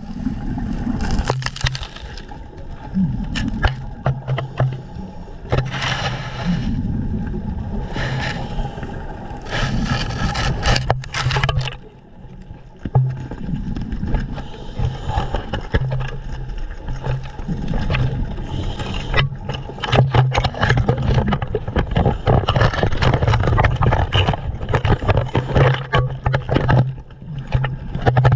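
Muffled underwater noise picked up by a diver's GoPro: water movement with many short knocks and clatters, over a low hum that comes and goes.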